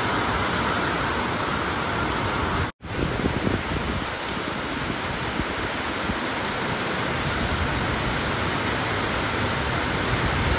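Heavy monsoon downpour: a steady, dense hiss of rain pouring down. The sound cuts out for an instant about three seconds in, then carries on.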